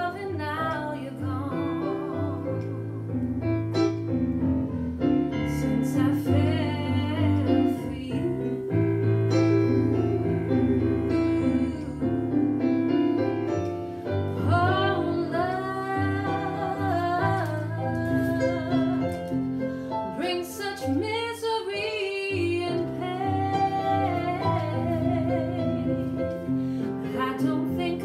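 A woman singing a slow song with vibrato, accompanied by sustained keyboard chords.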